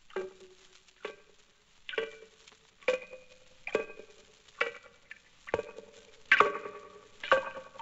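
Dripping-tap sound effect made larger than life as if through a contact microphone and amplifier: single ringing plinks about once a second, each louder than the one before.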